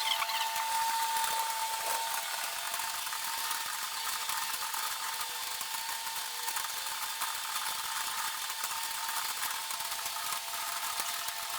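Rapid, overlapping clatter of many computer keyboards being typed on at once, with a steady tone underneath.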